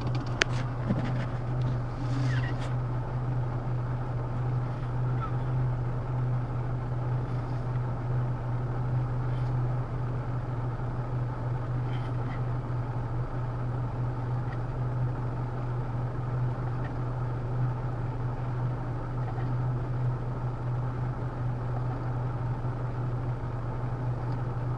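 A steady low mechanical hum that holds constant, with no rise and fall of breathing in it.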